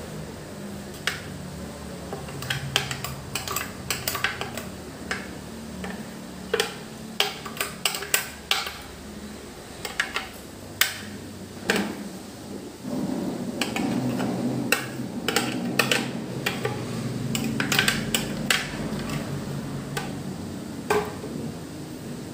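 Metal spoon clinking, tapping and scraping against a plastic blender jug and a plastic strainer as wet blended pandan leaf pulp is scraped out and pressed through. Irregular clicks and knocks, a few with a short ring. A low rumble comes in underneath about halfway through.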